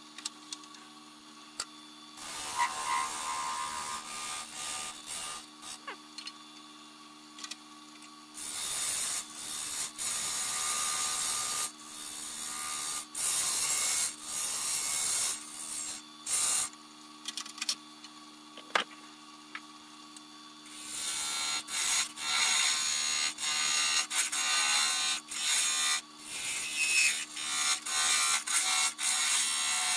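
Wood lathe running with a steady low hum while a turning tool is pressed against the spinning black walnut sphere. It scrapes in passes of a few seconds each, and the passes come closer together near the end.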